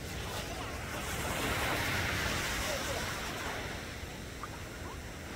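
Small sea waves breaking and washing up a sandy beach, the wash swelling to its loudest about two seconds in and then ebbing away.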